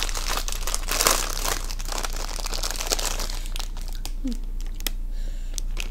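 Plastic wrapper of a packaged snack bun crinkling as it is opened and the bun pulled out. The crackling is densest in the first second and a half, then sparser.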